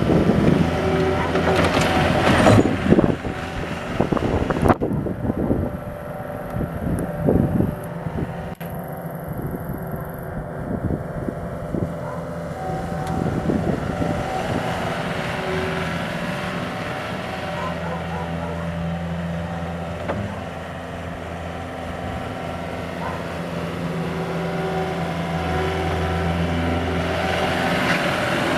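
Gehl 6640 skid steer's diesel engine running, with knocks and rattles through the first eight seconds or so, then a steady run whose tone shifts slightly now and then.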